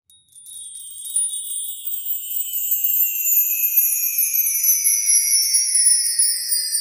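A high, glittering, bell-like shimmer whose tones slide slowly downward in pitch, with no low notes. It starts softly and grows louder about a second in.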